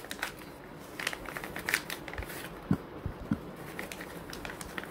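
Plastic packaging pouch crinkling and crackling in irregular bursts as it is handled and pulled open by hand, with a couple of dull knocks about halfway through.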